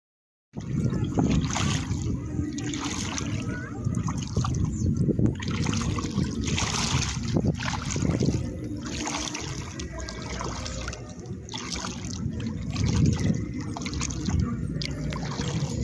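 Wind rumbling on the microphone over water lapping and sloshing, a rough, uneven noise.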